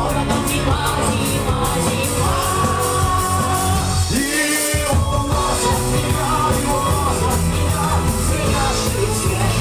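Live rock band playing, with singing over guitar, keys and drums. About four seconds in, the bass and drums drop out for about half a second, then the band comes back in.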